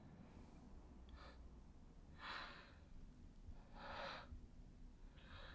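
Near silence, broken by four faint, short breaths.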